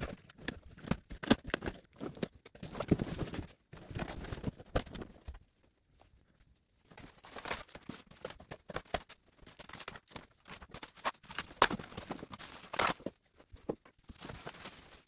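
Unboxing noises from a large cardboard box and its polystyrene foam packing: irregular sharp knocks, scrapes and rustles as the box is opened and the foam inserts are lifted out, with a short lull about a third of the way in.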